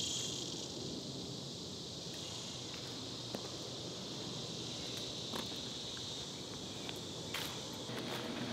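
Steady high-pitched insect chorus, loudest at the start and fading early on, with footsteps on pavement and a few light taps.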